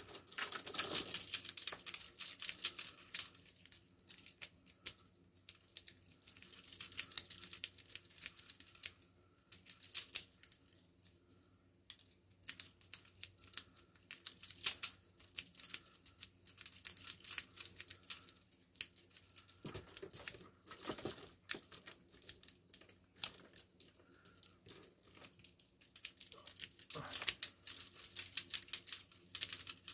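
Fast, irregular metallic clicking and scraping of a lock pick rake worked in and out of a small padlock's keyway against its pins, with a brief pause about ten seconds in.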